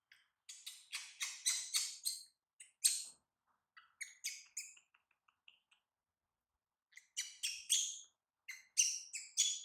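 Baby monkey giving quick runs of short, high-pitched squeaking cries, in several bouts with a pause of about a second past the middle.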